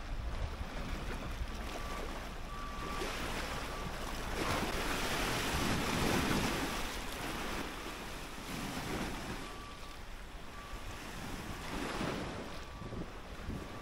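Small lake waves breaking and washing against the rocks of the shore, the splash swelling loudest about five to seven seconds in. Wind rumbles on the microphone.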